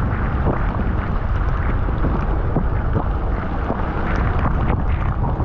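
Wind rushing over the microphone of a bicycle-mounted camera riding through a downpour, with the hiss of rain and wet tyres on the road and scattered sharp ticks of raindrops.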